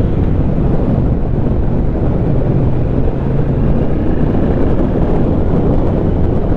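Triumph Speed Twin's parallel-twin engine running steadily under way, with its catalyst removed and an X-pipe fitted, mixed with wind rushing over the microphone.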